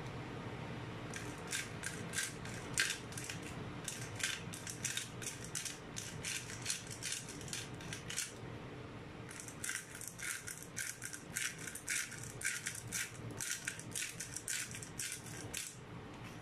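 Pepper mill grinding black pepper: rapid crackling clicks in two long runs with a short pause about eight seconds in, over the low bubbling of a boiling pot of soup.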